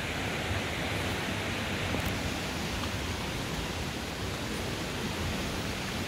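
Steady rushing of flowing water from a forest stream or waterfall, an even hiss with no breaks.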